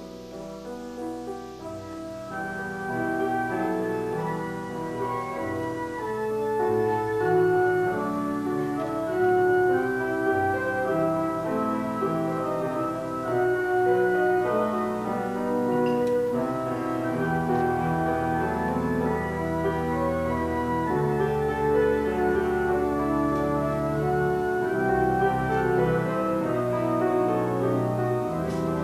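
Church organ playing slow, held chords over a sustained pedal bass, starting softly and growing louder over the first few seconds.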